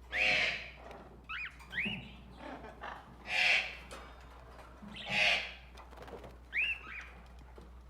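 Tropical birds calling: three loud, harsh squawks roughly two seconds apart, with shorter whistled calls that rise and fall in pitch between them.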